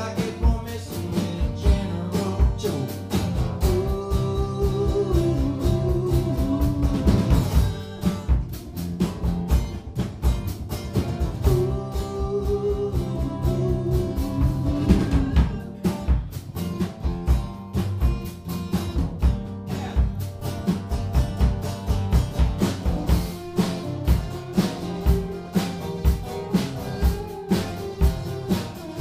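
Live acoustic band playing: two acoustic guitars strummed over a drum kit keeping a steady beat, with a man singing in phrases during the first half. The second half is instrumental.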